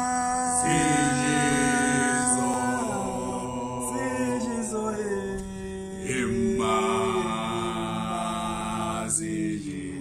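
Several voices singing a cappella in harmony, holding long notes that shift to new chords every few seconds.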